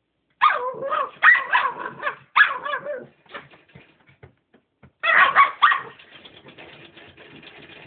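Puppy barking in high, wavering yips: three at the start and a quick cluster about five seconds in. Faint scattered clicks fall between them, and a steady fast rasping clicking follows to the end.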